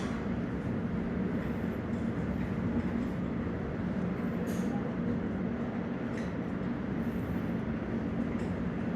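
Steady low engine rumble from a ship's machinery, running evenly with no change in pitch or level.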